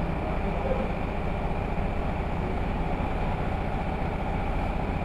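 An engine idling steadily: an even, fast low rumble with no change in speed.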